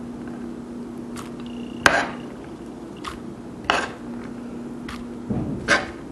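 Sharp clinks of a metal utensil against a mixing bowl as diced onion is added, three louder ones roughly two seconds apart with fainter taps between, over a steady low hum.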